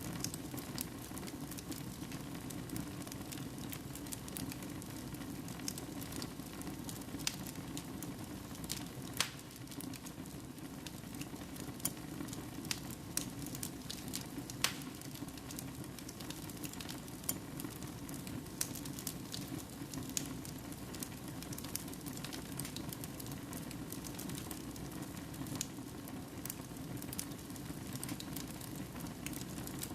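Wood fire burning in a fireplace: a steady hiss and low rumble of flames with irregular crackles and pops from the logs, a few sharper pops standing out.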